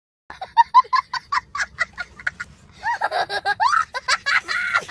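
A child laughing hard in short, high-pitched bursts, about four a second, then in longer drawn-out laughs from about three seconds in.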